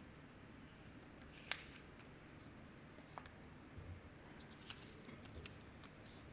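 Near silence: room tone with a few faint, sharp clicks, the clearest about one and a half seconds in.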